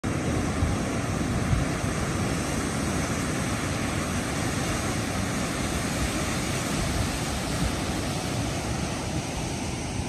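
Atlantic surf breaking and churning white water against a rocky shore, a steady rushing wash, with wind buffeting the microphone.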